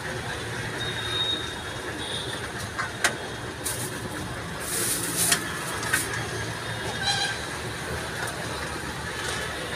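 Steady rumbling street noise with a few sharp knocks scattered through it, and a brief horn-like tone about seven seconds in.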